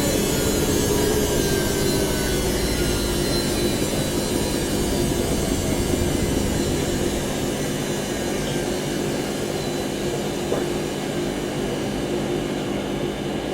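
Washing machine running its spin cycle: the drum spinning fast with a steady mechanical hum and whine, several tones drifting slightly lower in pitch.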